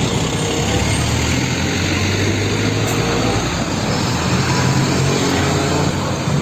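Diesel engine of a heavy UD Trucks dump truck running as the truck drives past, under a steady rush of noise.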